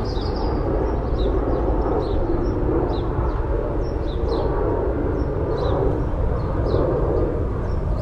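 Urban park soundscape: a steady low rumble of city noise with a small bird's short high chirps repeating about twice a second over it.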